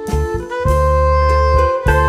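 Background music: sustained melodic notes over a steady bass, changing about once a second.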